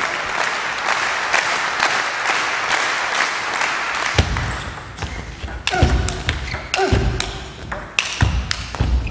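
Crowd murmur in a large hall, then from about four seconds in a table tennis rally: the celluloid ball clicking sharply off bats and table about twice a second, mixed with heavy low thuds.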